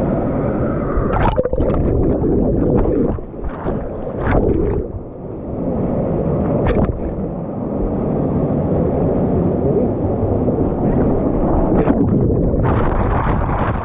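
Rushing, churning water of a wild-river water ride, heard through an action camera's waterproof housing and muffled, with several sharp splashes or knocks.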